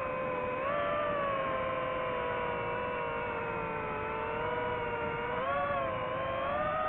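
Whine of the DJI FPV drone's motors and propellers, one steady pitched tone with overtones. The pitch dips briefly about half a second in and rises again twice toward the end as the throttle changes.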